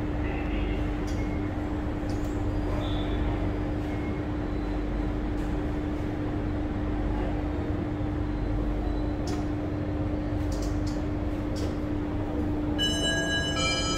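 Interior of an SMRT Alstom C830C metro train running: a steady rumble of wheels on the track with a constant low hum. Near the end a multi-note electronic chime starts, the lead-in to an onboard announcement.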